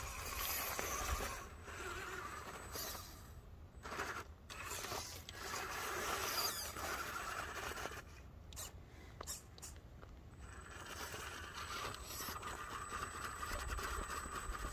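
Axial Capra 4WS RC rock crawler clambering over frozen rocks: its tires and chassis scrape and grind on stone while the small electric drivetrain whirs. The sound goes in stop-start spells, with quieter pauses about four seconds in and again from about eight to ten seconds.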